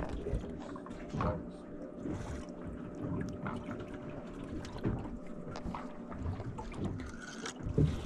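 Ambient sound aboard a small fishing boat: water sloshing against the hull under a faint steady hum, with scattered small clicks and knocks from handling hook, rig and reel.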